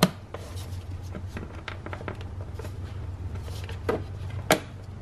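Plastic engine cover being handled and fitted back over the engine, knocking against the engine top in a few sharp plastic clacks: one right at the start and two more about four seconds in.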